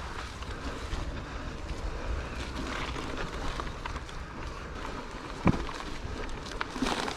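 Electric mountain bike riding down a dirt trail: wind rushing over the microphone and tyres rumbling over the ground, with scattered clicks and knocks from the bike over bumps and one hard knock about five and a half seconds in.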